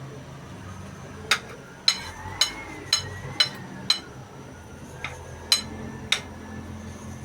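A kitchen utensil striking hard cookware nine times, each a sharp tap with a bright ringing clink, about two a second with a short pause midway.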